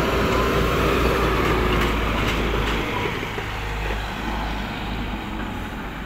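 Manitou telehandler's diesel engine running as the machine drives, steady and slowly fading.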